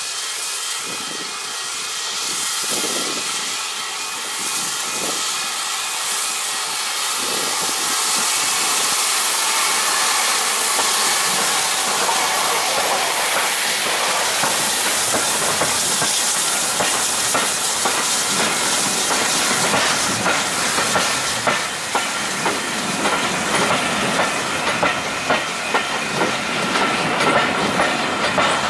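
A steam locomotive approaches and passes close by, the hiss of its steam growing louder as it nears. Its coaches then roll past with a regular clacking of wheels over the rail joints.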